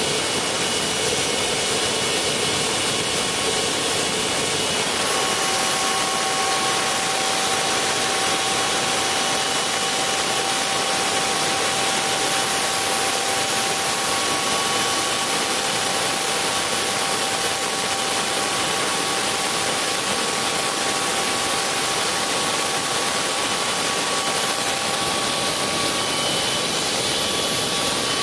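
Tiernay TT10 gas turbine running steadily, driving a generator, with a continuous rushing noise and a high whine. The pitch of the whine steps up about five seconds in.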